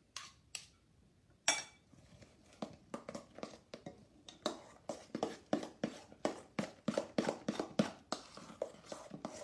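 Metal spoon clinking and scraping in a stainless steel mixing bowl: a single ringing tap about one and a half seconds in, then steady stirring strokes, about three a second, as whipped topping and lemon curd are mixed together.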